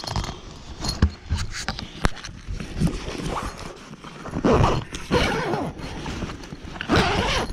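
A border collie scrabbling and digging at the canvas and bedding of a swag: irregular knocks and thumps with scratchy rustling, louder about halfway through and again near the end.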